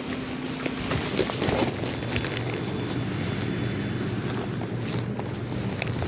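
Wind buffeting the microphone, with a vehicle's engine running past near the middle, and a few sharp crunchy clicks.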